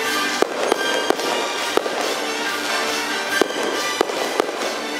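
Aerial fireworks shells going off in a string of sharp, irregularly spaced bangs over steady music.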